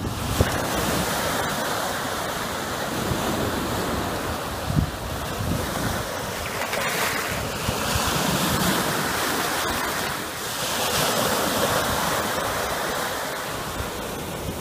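Small waves breaking and washing up over a sandy beach, the surf swelling and easing every few seconds, with wind buffeting the microphone.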